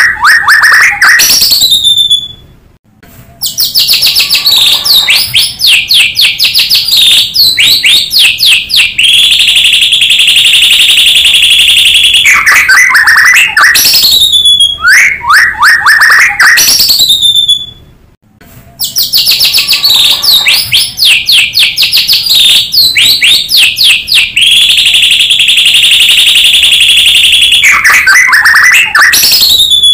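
White-rumped shama (murai batu) song, loud and continuous: rapid chattering notes and sweeping whistles with a long steady trill, broken by short pauses about 3 and 18 seconds in. The same passage repeats about every 15 seconds, as a looped lure recording does.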